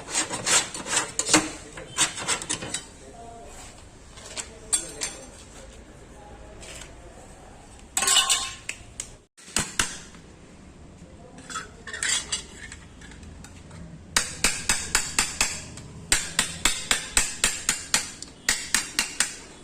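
Hammer striking the sheet-metal body panel of a Maruti 800, beating out a dent by hand: irregular sharp metallic taps at first, then quick, even runs of strikes, about three a second, over the last few seconds.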